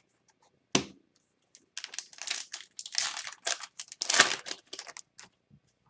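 An Upper Deck hockey-card pack wrapper crinkling as it is handled and torn: one sharp click about a second in, then a few seconds of dense crackling.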